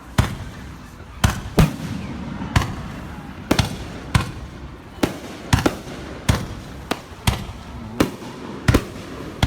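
Fireworks bursting in a continuous display: more than a dozen sharp bangs at uneven intervals, from a fraction of a second to about a second apart, with a low rumble between them.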